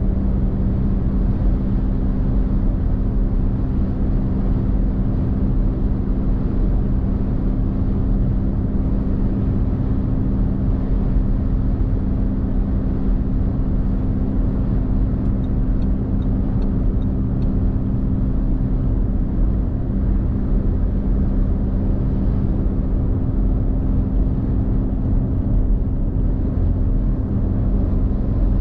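Car cruising on a motorway: a steady low rumble of road and engine noise with a constant hum, unchanging throughout.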